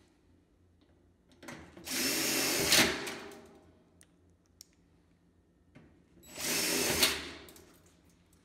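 Cordless drill-driver running twice, about a second each time, driving two screws through a galvanized steel Zee-Klip into a steel stud; each run is loudest just before it stops as the screw seats. Faint handling clicks between the two runs.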